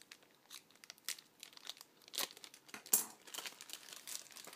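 Taped padded mailer being torn open and its contents pulled out: irregular crinkling and tearing of paper and plastic packaging, loudest about three seconds in.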